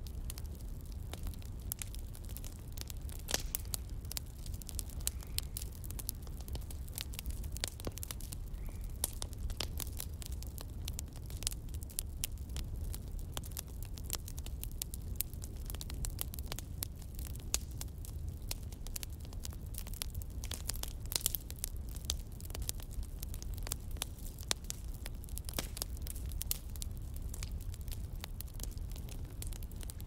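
Crackling fire: many irregular sharp pops and crackles over a steady low rumble.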